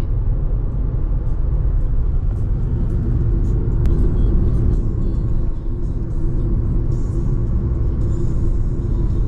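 Steady low road-and-engine rumble of a car on the move.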